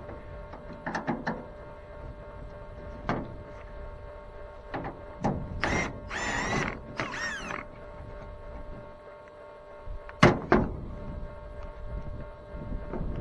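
Hand tools knocking and clanking on metal while a bulldozer radiator is being unbolted, with a squealing metal-on-metal scrape in the middle.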